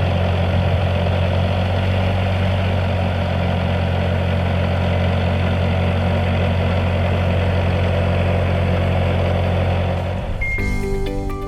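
Bobcat 773 skid steer's diesel engine running steadily at a constant speed. Music comes in about a second before the end.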